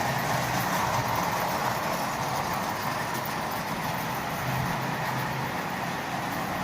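Marx Commodore Vanderbilt toy train locomotive running on its track: a steady whirring and rolling noise from its motor and wheels.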